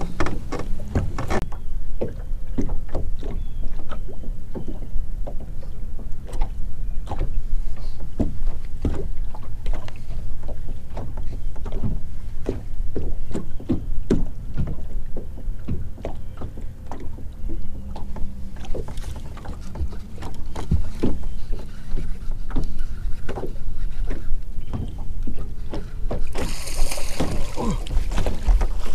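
Small waves slapping against the hull of a fiberglass bass boat: a steady run of irregular knocks over a low rumble. Near the end comes a short, louder hiss.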